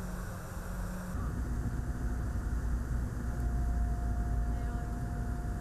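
Cabin noise of a COMAC ARJ21 regional jet heard from inside by a window: a steady rumble of its rear-mounted turbofans and the airflow. About a second in it changes to a louder, deeper rumble as the jet moves fast along the runway, and a steady whine joins in partway through.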